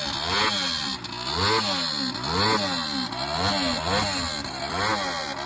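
1976 Honda Super Cub C70's small four-stroke single-cylinder engine being revved repeatedly, about once a second, its pitch rising with each blip of the throttle and falling back. The sound cuts off abruptly at the end.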